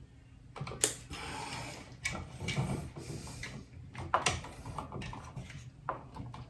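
Small clicks and rustling from handling a motion sensor switch and its wires, bending the wires into place.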